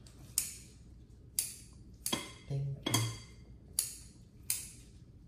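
Close-miked chewing of food, with short crisp crackles about once a second and a brief low hum near the middle.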